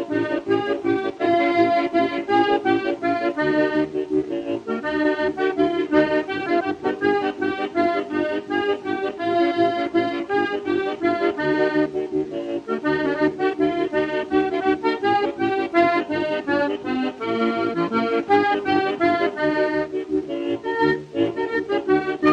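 Background instrumental music: a fast tune of short, quick notes over a steady lower accompaniment.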